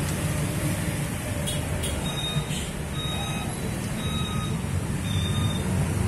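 Steady rumble of passing road traffic, motorbikes among it. Faint, short, high beeps repeat about once a second from about two seconds in.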